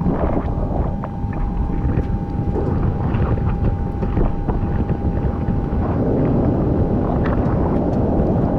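Wind buffeting an action camera's microphone mixed with rushing sea water, a dense steady rumble strongest in the low end.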